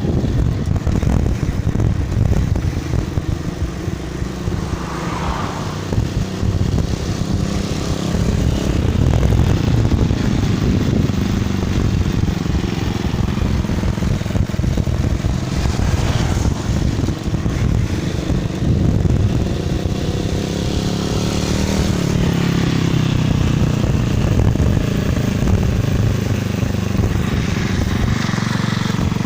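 Steady low rumble of wind and rolling noise on the microphone while riding a bicycle.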